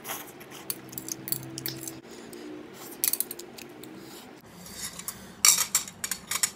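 A person slurping instant noodles and chewing with wet mouth clicks, close to the microphone. A louder cluster of clicks comes near the end.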